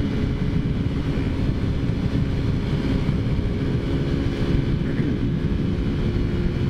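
Taotao Zummer 50cc four-stroke scooter engine running steadily at cruising speed, with wind rumble on the microphone.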